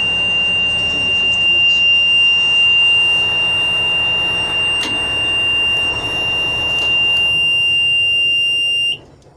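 Fire truck engine running with a steady, high-pitched warning buzzer sounding over it in the cab; the buzzer and engine cut off suddenly near the end as the engine is switched off.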